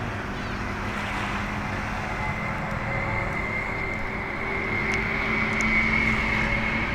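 Distant engine hum, steady with a held tone, growing louder a little past the middle, with a few faint clicks.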